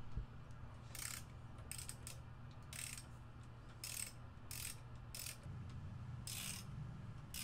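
Socket ratchet clicking in short runs, about eight strokes one every second or so, as it turns down an in-chassis valve spring compressor to compress a valve spring on a Cummins 6BT 12-valve head.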